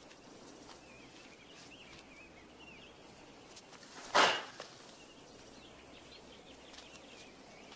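A single sudden, loud swish-and-hit of a flying kick about four seconds in, dying away within half a second, over faint birdsong chirping.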